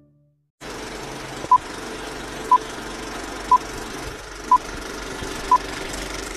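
Film countdown leader sound effect: a steady old film projector clatter and hiss with a short beep every second, five beeps at the same pitch.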